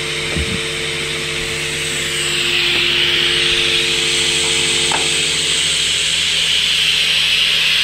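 Steady hiss from a small live-steam boiler and its gas burner, growing louder about two seconds in. Under it, several steady low tones hold and then stop after about five and a half seconds.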